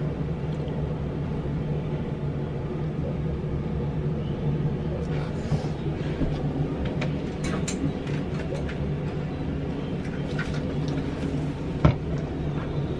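Bathroom exhaust fan humming steadily. Scattered small clicks and taps come in from about halfway, with one sharper tap near the end.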